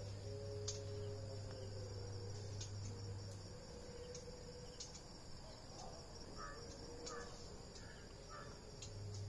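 Faint outdoor ambience: a steady high insect drone, like crickets, with a few short bird calls near the end.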